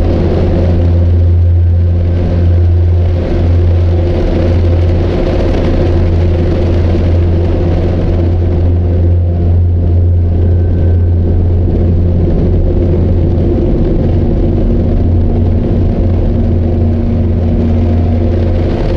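A loud, steady low rumble with a constant hum, like a running vehicle engine, holding evenly throughout.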